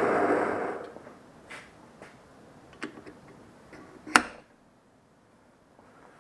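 Homemade hot-air space heater's fan blowing steadily, stopping under a second in; then a few light clicks and one sharp click about four seconds in as a heat-expanded bearing is pushed down onto the spindle pulley's shaft.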